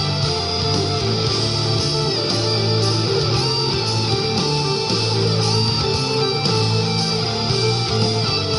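Background music led by guitar, playing steadily with a strong beat.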